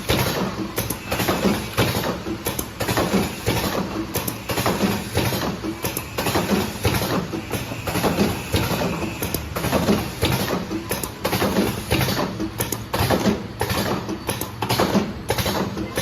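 Automatic cartoning machine running: a steady mechanical clatter of frequent clicks and knocks over a low hum.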